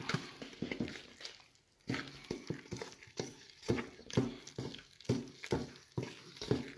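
Spoon stirring chocolate cake batter in a large metal bowl, knocking against the bowl about twice a second, with a short pause about one and a half seconds in.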